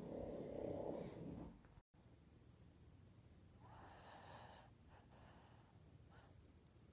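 A pug snoring for about a second and a half. After a short gap, a pug's breathy snuffles in a few short puffs, the longest about four seconds in.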